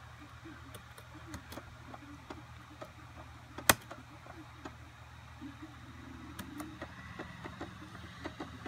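Scattered light clicks of a computer's pointer buttons, with one sharp loud click about three and a half seconds in, over a steady low hum.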